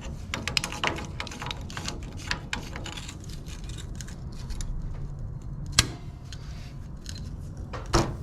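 Vise-grip locking pliers clamped onto hydraulic quick-connect couplers and wrenched to break them loose: scattered metallic clicks and clatter, with a sharp snap about six seconds in and another near the end.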